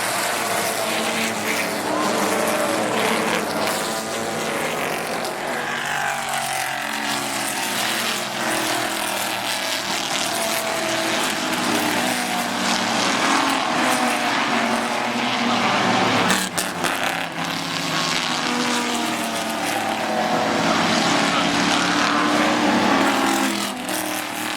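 Historic GT racing cars, a mix of V8 and straight-six engines, running hard past the track, their engine notes rising and falling in pitch as they accelerate and change gear one after another. A brief sharp crack sounds about two-thirds of the way through.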